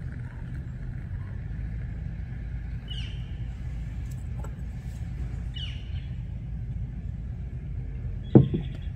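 Steady low outdoor rumble with two short falling bird chirps. Near the end a sharp clink sounds as a long spoon stirs coffee in an AeroPress.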